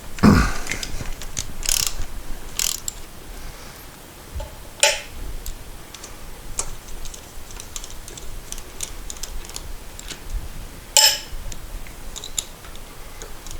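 Ratchet wrench clicking in short runs as the intake manifold's nuts are undone, with a few sharper clinks of metal tools, loudest about five seconds in and again near eleven seconds.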